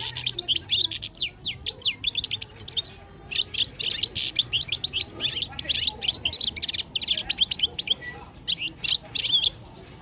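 Male European goldfinch singing excitedly: rapid runs of high, liquid twittering and chirps, broken by short pauses about three and eight seconds in.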